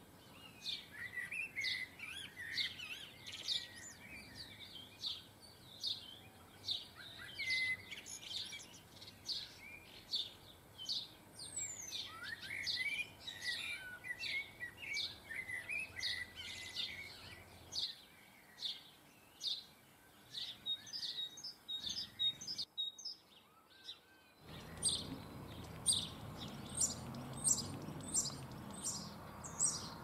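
Small garden songbirds chirping and twittering in a fast, near-continuous stream of short high calls. The calls stop briefly about three-quarters of the way through, then resume over a steady low background noise.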